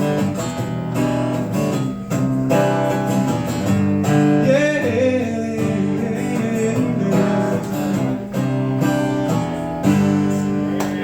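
Acoustic guitar strummed and picked through the closing instrumental bars of a live country-blues song.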